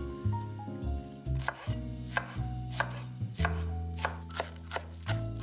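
Chef's knife chopping fresh parsley on a bamboo cutting board: a steady run of crisp strikes, about two to three a second.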